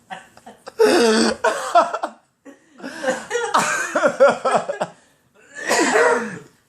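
A man coughing in three long, strained fits, his voice breaking through each one, while he tries to get rid of the hiccups.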